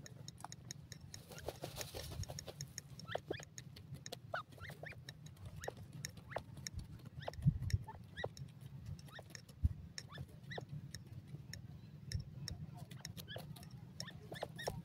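Grey francolins huddled together giving faint, short chirps among many soft clicks and ticks, over a steady low rumble, with a couple of louder low thumps about halfway through.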